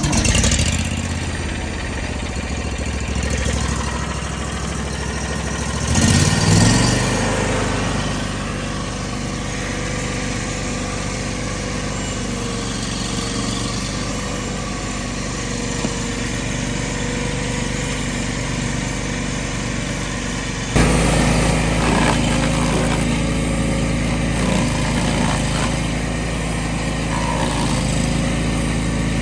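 Bandit SG-40 stump grinder's gas engine running steadily. It revs up about six seconds in, and about 21 seconds in the sound turns abruptly louder and deeper.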